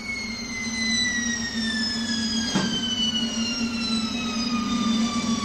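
A long, slowly and evenly falling whistle-like tone, a stage sound effect or instrument glide, over a steady low hum. There is a single click about halfway through.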